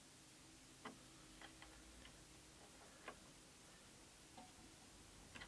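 A few faint, sparse metallic clicks of a hex key working the grub screws in a pillow-block bearing's locking collar, the strongest about a second in.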